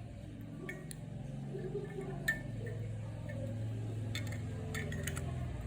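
Small metallic clicks and clinks from a Zippo lighter being handled, several scattered over a few seconds, over a steady low hum.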